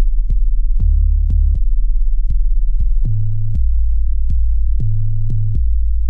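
Subwoofer bass test track: deep, loud electronic bass tones that jump between low pitches about every half second, each change marked by a sharp click.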